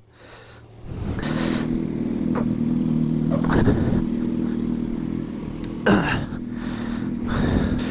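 Motorcycle engine coming in about a second in and then running steadily, with a few brief louder bursts.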